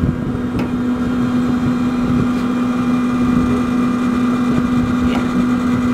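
Traeger pellet grill switched on high, its fan motor running with a steady, even hum over a rushing noise.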